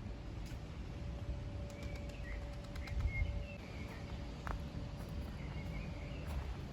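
Small birds chirping in short calls, over a steady low outdoor rumble, with a faint steady hum in the first half.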